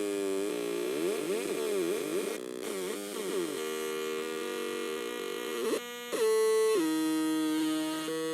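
Homemade dual Atari Punk Console, two 556-timer square-wave tone circuits on a breadboard, buzzing out harsh pitched tones. In the first few seconds the pitches sweep up and down as the pots are turned. Then they hold steady, cut out for a moment just before six seconds, and jump in steps to new steady drones.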